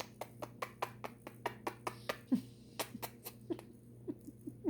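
A person kissing a kitten: a run of quick lip smacks, about three or four a second.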